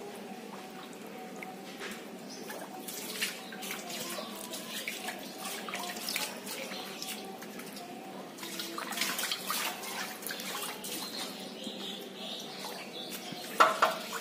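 Water running from a hose into a plastic tub of water, with irregular splashing from an Asian small-clawed otter swimming in it. The splashes come in clusters about three seconds in and again around nine to eleven seconds in, and there is one louder splash near the end.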